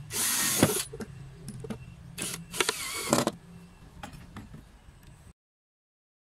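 Cordless drill/driver running in three short bursts as it drives screws to fix a corner shelf's bracket: a half-second burst at the start, a brief one about two seconds in, then a longer one whose pitch dips under load and recovers.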